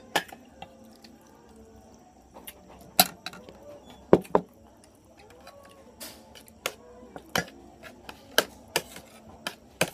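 Tableware being handled while eating: a dozen or so sharp, irregular clicks and knocks of dishes and a bowl set down and moved on the table. Faint voices in the background.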